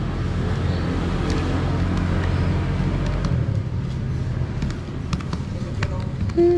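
A motor vehicle engine runs steadily close by with a low hum. A few faint sharp clicks come near the end, from calculator keys being pressed.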